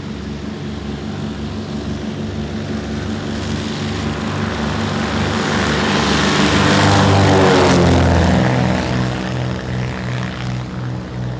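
Small propeller plane's engine running loud as it passes close by: the sound swells, then its pitch drops as it goes past about seven to eight seconds in, and it carries on steady.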